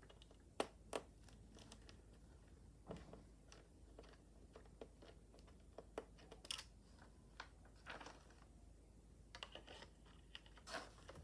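Faint, scattered clicks and short scrapes of plastic as a laptop's case is worked open with a small plastic pry hook.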